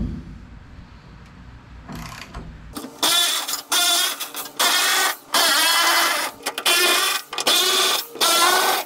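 Power impact wrench running in a string of short trigger bursts, about one a second, with a pitch that wavers as it backs out rusty tailgate hinge bolts. It starts about three seconds in, after a couple of light knocks.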